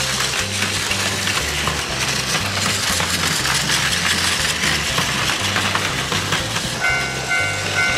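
Plarail toy Shinkansen trains running close by on plastic track: a steady clattering rattle of their small battery motors and wheels on the plastic rails, with many small clicks.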